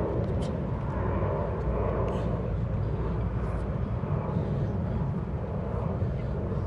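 Steady low outdoor rumble, with faint short hisses every second or so.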